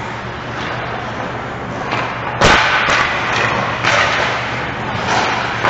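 Ice hockey play heard from beside the net: skates scraping on the ice, with a sharp impact of puck or stick about two and a half seconds in, the loudest sound, followed by more scrapes.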